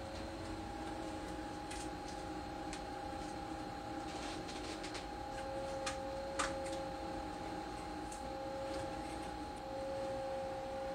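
Screen-laminating press machine running through its press cycle on a phone screen: a steady two-tone hum over a low noise, with a few light clicks, the sharpest about six and a half seconds in.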